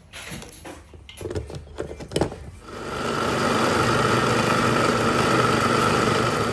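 A few light knocks and clicks, then a countertop blender starts about two and a half seconds in and runs steadily at speed, blending cranberries and beetroot with lemon juice into a juice.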